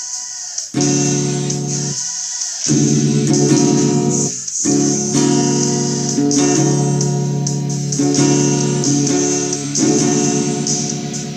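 Rock music: guitar chords played over a bass line, with a short break about two seconds in and a brief dip around four and a half seconds.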